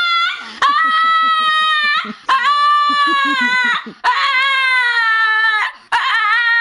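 A dog howling in long drawn-out, whining notes, four in a row, each held about a second and a half and sagging a little in pitch at the end.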